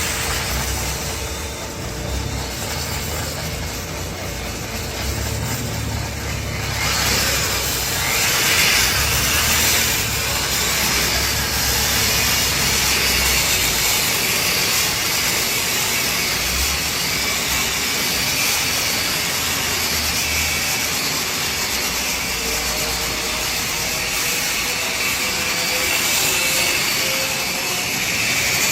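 Variable-speed electric buffer with a 6-inch bristle brush running and scrubbing a steel welding table. It makes a steady, broad hiss over a low motor hum, and the hiss grows louder about seven seconds in.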